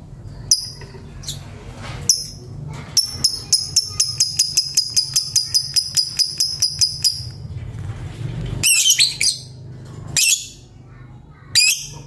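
Fischer's lovebird singing: a rapid run of sharp, high chirps at about five a second, then a few short, harsh shrieks near the end.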